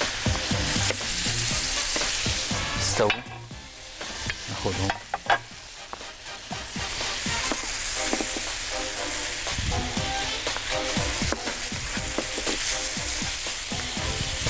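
Calamari pieces sizzling on a hot ridged grill plate while a wooden spatula scrapes and turns them.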